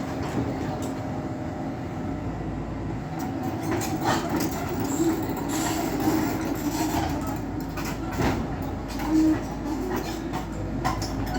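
Komatsu PC78 hydraulic excavator running steadily while it digs, with sharp metallic knocks every second or two.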